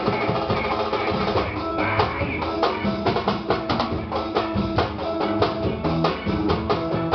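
Band playing music at a soundcheck: a drum kit with bass drum and snare keeps a steady beat under bass and other pitched instruments.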